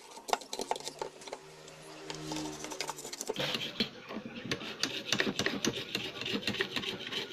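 Small metal tools clicking and scraping against a CRT TV's circuit board as a broken ceramic part is worked off it, the scraping growing busier about three seconds in. A low steady hum sits under the first few seconds.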